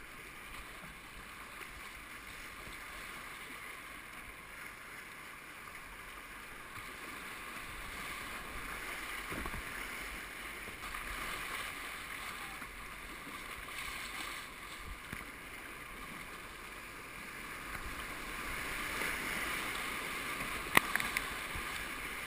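Whitewater rushing and splashing around a kayak running a river rapid, getting louder in the second half as the water turns rougher. A sharp knock near the end.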